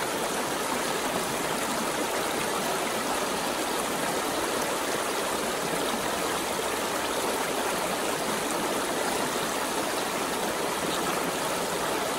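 Shallow river rushing steadily over rocks in a riffle, a constant even roar of water.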